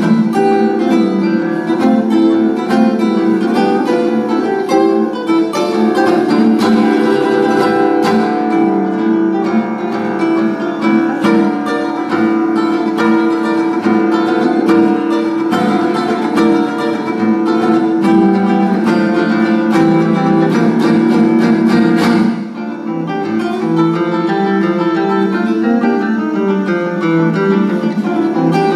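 Solo nylon-string classical guitar played fingerstyle: a dense, fast stream of plucked notes and chords. About three-quarters of the way through the playing dips briefly, then carries on a little softer.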